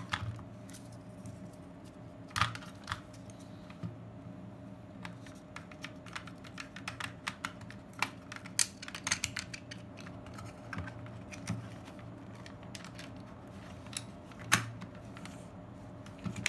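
Scattered sharp plastic clicks and taps from a Kodak KB-10 35mm point-and-shoot camera being handled while a film cartridge is loaded and its leader pulled across, the sharpest about two and a half seconds in and near the end. A steady low hum runs beneath.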